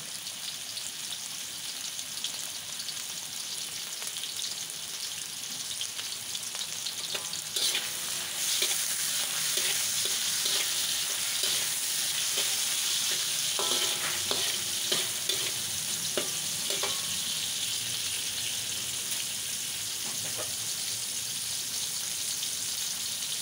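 Fish cake slices and garlic sizzling in hot oil in a wok, the sizzle growing louder about a third of the way in. A metal spatula scrapes and clinks against the wok as they are stirred, mostly in the middle stretch.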